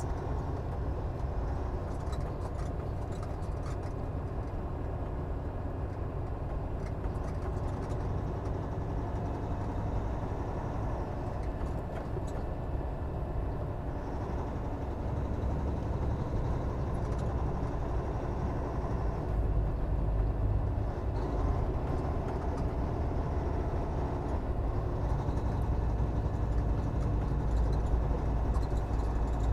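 Semi truck's diesel engine running steadily under road rumble as the rig pulls double trailers on a snowy mountain road. The low rumble grows a little louder about two-thirds of the way through.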